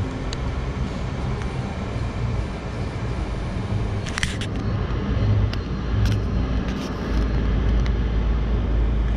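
Car engine running at low speed, heard from inside the cabin as a steady low rumble that grows a little stronger near the end, with a few scattered light clicks.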